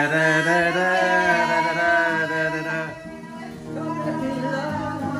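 A man singing a slow love song to his own acoustic guitar, holding long notes, with the voice dropping away for a moment about three seconds in before the guitar and singing carry on.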